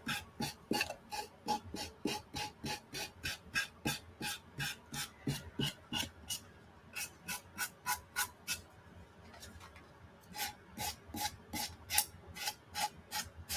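Sanding sponge rubbed quickly back and forth along the edge of a decoupaged box to sand off the overhanging rice paper, about three scraping strokes a second. The strokes stop for a second or two a little past the middle, then start again.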